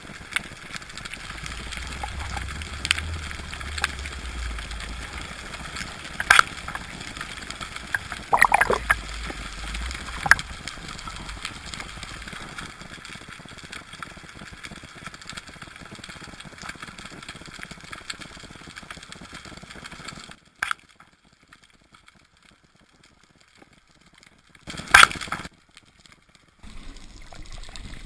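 Underwater ambience picked up by a camera in its housing: a steady hiss with a few sharp clicks. About twenty seconds in it drops almost to quiet for several seconds, broken by one brief loud burst, and the hiss returns near the end.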